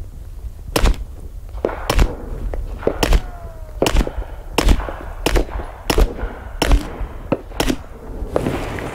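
Suppressed 9mm pistol fired about nine times at a steady pace, roughly one shot every three-quarters of a second, each a dull, short report.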